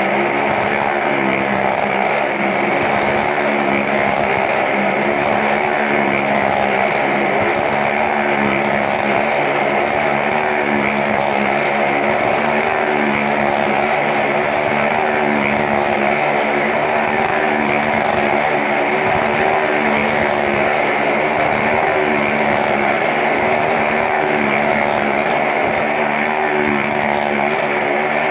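Motorcycle engine running hard and steady as the bike circles the vertical wooden wall of a well-of-death drum, its pitch wavering slightly as it laps.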